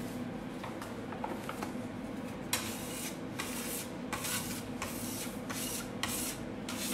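Metal bench scraper scraping flour and dough scraps across a stone worktop. There are faint scratches at first, then from a couple of seconds in a run of firm strokes, about two to three a second.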